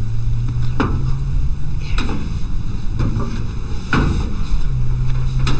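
Old pickup truck's engine idling with a steady low rumble, over which sharp knocks come about once a second.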